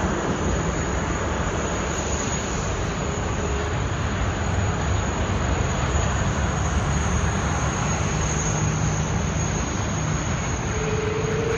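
Steady airport apron noise: the engines of a taxiing twin-engine widebody jet mixed with apron vehicles, an even rumble and hiss. A faint steady tone joins near the end.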